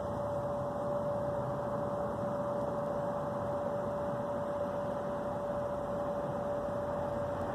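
Steady background hiss with a constant mid-pitched hum running through it, unchanging throughout.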